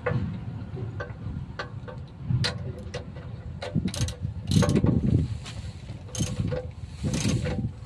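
Irregular metallic clicks and clanks as a metal handle and tool are fitted and worked on the top of an old stationary engine, over a steady low rumble.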